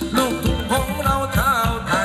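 Live Thai ramwong dance music from a band, with a steady beat and a singer's voice gliding and wavering on held notes.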